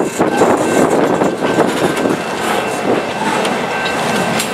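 Freight train rolling slowly past: steel wheels on the rails of the loaded flatcars, with the diesel engine of EMD GP9 locomotive 100 drawing near. A faint steady high whine runs under the rumble.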